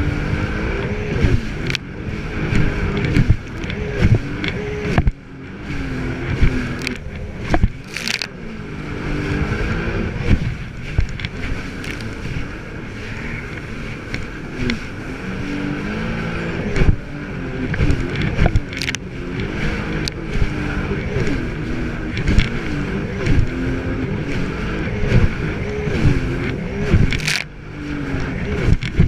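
Jet ski engine running under way, its pitch rising and falling again and again as the throttle and load change. Irregular sharp knocks and splashes run through it, from the hull slapping over the chop.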